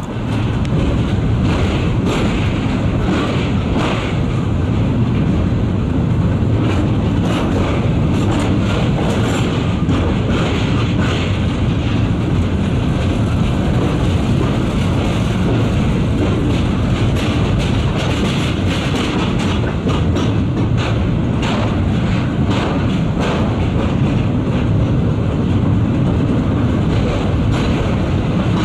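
A train running steadily, heard from aboard: a constant low rumble of wheels on rail with irregular clicks and knocks from the wheels over rail joints as it crosses a bridge.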